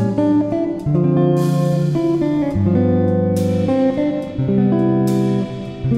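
Background instrumental music with plucked guitar, its chords changing about once a second.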